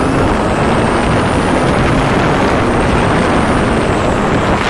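Loud, steady wind rush buffeting the microphone on a moving motorcycle, with the motorcycle's engine running underneath.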